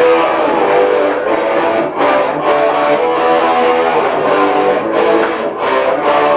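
Electric guitar strumming the opening chords of a song, setting the tempo.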